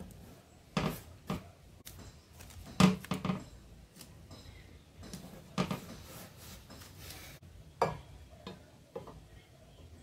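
Handling noises on a plywood panel: a string of short knocks and taps, the loudest about three seconds in, with rubbing between them, as masking tape is pressed down by hand and a metal speed square is set against the panel.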